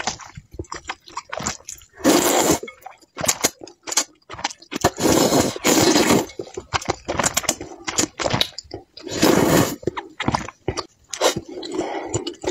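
A person slurping noodles out of a soupy broth, three long slurps about three seconds apart. Between them come short wet chewing and smacking sounds.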